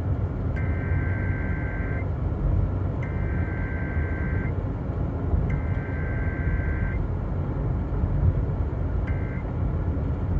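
Emergency Alert System SAME data header coming over the radio: three harsh, buzzing two-pitch digital bursts of about a second and a half each, a second apart. Near the end come two short end-of-message bursts of the same tones. A steady low rumbling noise runs underneath.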